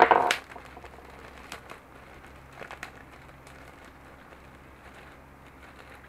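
Plastic parts bag being torn open with a short, loud crinkle, then a few softer rustles and clicks of plastic being handled.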